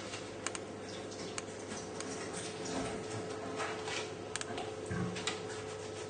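Quiet room tone with a steady faint hum and a few faint, scattered clicks and taps.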